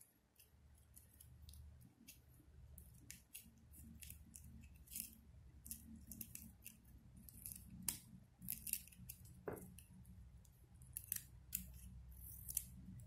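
Small scissors snipping ribbon, a run of quick, irregular snips as excess ribbon is trimmed from the petals of a ribbon flower.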